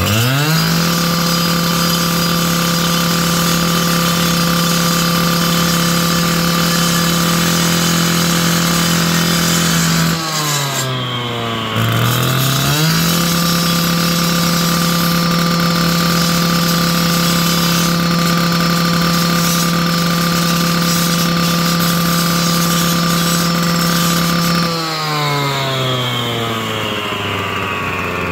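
A power tool's motor speeds up and runs at a steady high pitch. About ten seconds in it slows briefly, then speeds back up. Near the end it winds down.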